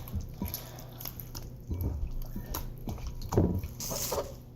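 Homemade glue slime being squeezed and kneaded by hand: irregular wet squelches and sticky clicks.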